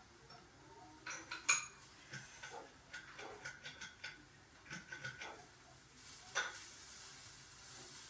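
Hunter Mayfair ceiling fan being handled at its light kit: a run of light, irregular clicks and clinks, then one louder clink about six seconds in.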